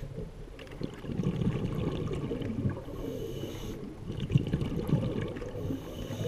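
Scuba regulator breathing heard underwater: a hissing inhale with a high whine about three seconds in and again near the end, and a low bubbling rumble of exhaled air in between.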